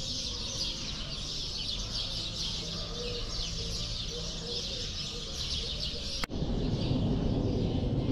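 Many small birds chirping and chattering together in a dense, continuous chorus. About six seconds in, the sound cuts abruptly to a louder low outdoor rumble with the chirping fainter.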